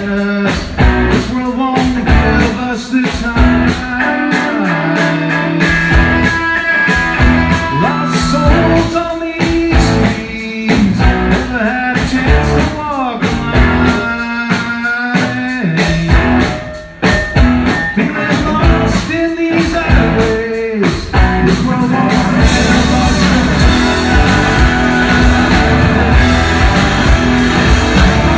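Alt-country rock band playing live: two electric guitars, electric bass and a drum kit, with a man singing lead. About three-quarters of the way through the singing stops and the band plays on without vocals.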